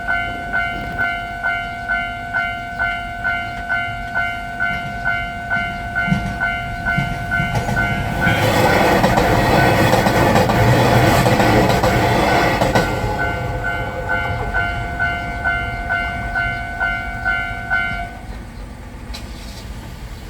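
Japanese railway level-crossing bell dinging steadily, about two to three rings a second. About eight seconds in, a passing diesel railcar grows loud over the crossing for some five seconds, then fades. The bell stops near the end.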